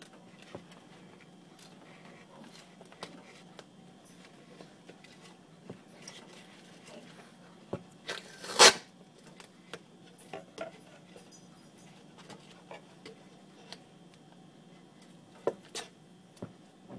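Adhesive tape being pulled off its roll and wrapped around a plastic bottle: scattered small crackles and rustles, with one loud tearing rip about eight and a half seconds in. A faint steady low hum runs underneath.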